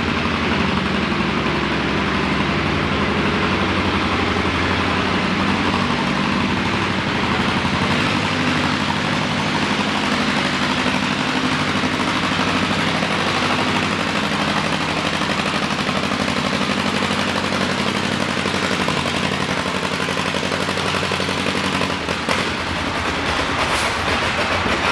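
Vintage John Deere two-cylinder tractor engine working hard under load as it pulls a sled, its exhaust a rapid, steady popping.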